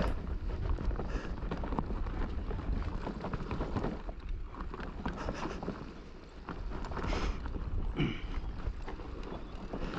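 Mountain bike riding fast down a steep dirt trail: tyres rolling over the ground and the bike rattling over bumps in quick irregular knocks, with wind rumbling on the microphone.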